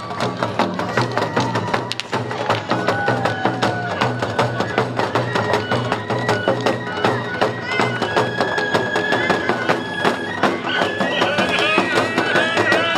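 Japanese festival hayashi music for a lion dance: fast, steady drumming under a shrill bamboo flute playing held high notes, which grow stronger in the second half.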